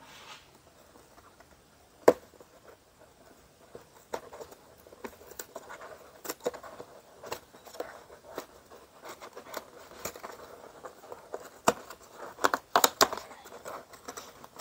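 Hands working open a cardboard cereal box: scattered scrapes, rustles and small clicks as the glued end flap is pried and torn, thickest near the end, with one sharp click about two seconds in.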